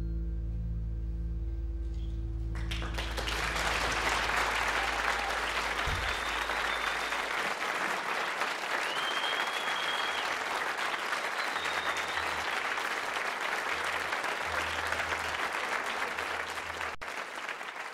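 The last sustained notes of a band's slow song ring out. About three seconds in, an audience breaks into applause with a few whistles, and the applause fades away near the end.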